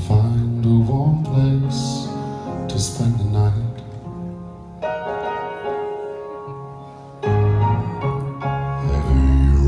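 Live male vocal harmony group singing a slow soul ballad: a male lead voice over sustained harmony chords with instrumental accompaniment. The music drops back in the middle and swells louder again about seven seconds in.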